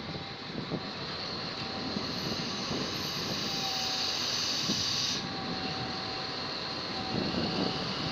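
D10H diesel-hydraulic locomotive with its Caterpillar engine running, with a faint steady whine. A hiss rises about two seconds in and cuts off suddenly about five seconds in.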